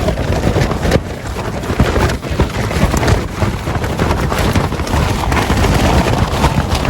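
Strong wind gusting against a lightweight tent: the tent fabric flaps and snaps in rapid, irregular cracks over a steady rush of wind, with wind buffeting the microphone.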